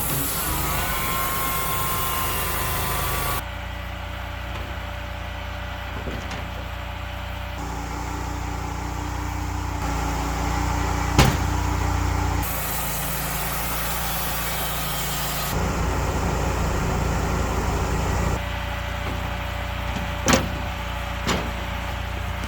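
Engine-driven machinery running steadily, its sound changing abruptly several times as the clips cut. There is a sharp knock about 11 seconds in and two more near the end.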